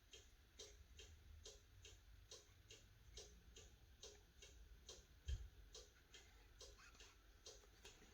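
Near silence with faint, even ticking about twice a second, and one soft low thump about five seconds in.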